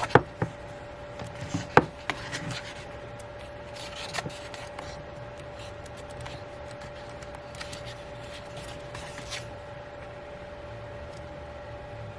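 Album inclusions (cards, paper and plastic pieces) being handled: a few sharp taps and clicks in the first two seconds, then quieter rubbing and rustling, over a steady faint hum.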